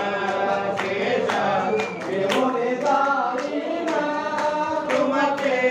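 Devotional bhajan sung by a group of voices, with sharp strikes keeping a steady beat about twice a second.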